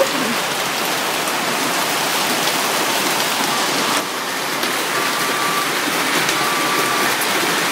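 Dense hail pelting down and rattling on the street, cars and metal railings, a heavy, continuous patter full of small sharp impacts.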